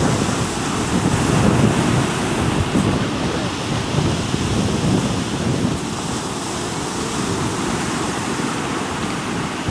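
Ocean surf breaking and washing up the shore, a steady rushing noise that swells a little and eases again.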